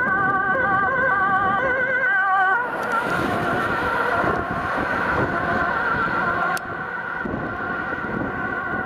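Emergency siren of a Mercedes E-Class organ transport car, warbling through a repeating multi-tone pattern. About two and a half seconds in, tyre hiss on wet asphalt rises under a steadier siren tone, and the sound drops in level suddenly later on.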